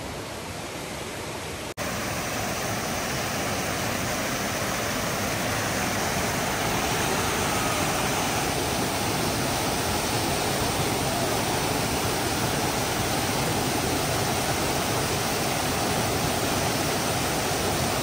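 A waterfall's rushing water: a steady, even rush that gets louder at a sudden step about two seconds in.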